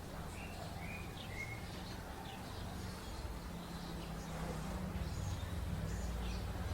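Small birds chirping here and there over a steady low hum, which grows louder near the end.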